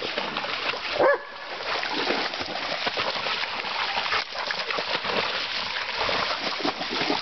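Dogs splashing through shallow creek water, with one short, loud bark about a second in.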